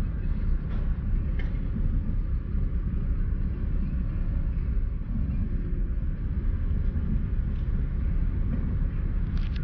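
Steady low rumble inside a stationary car's cabin from its idling engine, with a few faint clicks.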